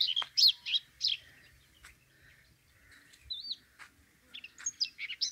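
Birds chirping in quick high notes, thick at the start and again near the end, with a sparser stretch in between.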